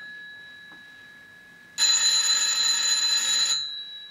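Push-button desk telephone ringing with an electronic ring: one ring of nearly two seconds starts about halfway through, just after the previous ring has stopped. It is an incoming call, about to be answered.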